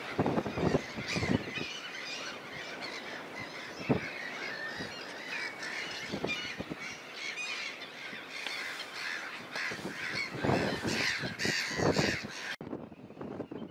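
Many birds calling and chattering at once in a dense chorus, with a few low thumps mixed in; the birdsong cuts off abruptly near the end.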